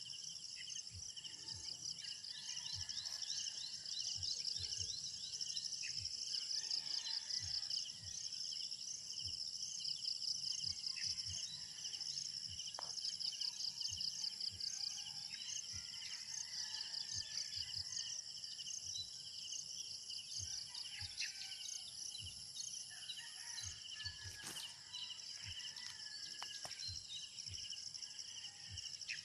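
Rural ambience of insects trilling steadily in a high, rapid pulse, with scattered bird chirps and calls over it.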